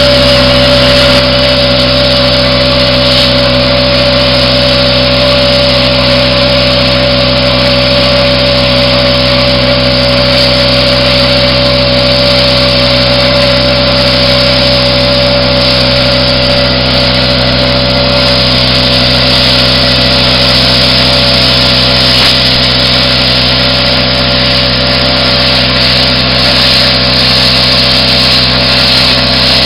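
Plasma cutter cutting through a steel ammo can: a loud, steady hissing buzz with a held hum, without a break.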